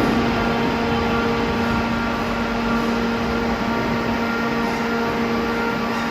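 Steady mechanical drone of background noise at a railway station, with a few fixed humming tones that hold constant pitch throughout.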